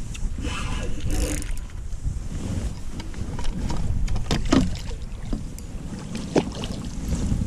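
Wind rumbling on the microphone, with scattered short knocks and clicks while a hooked fish is being brought in, the sharpest about halfway through and again near the end.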